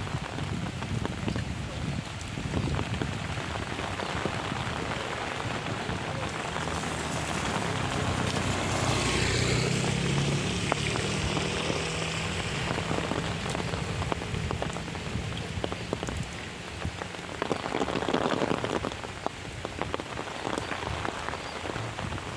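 Heavy rain falling, with a dense patter of drop hits. A low steady hum sounds under the rain through the middle.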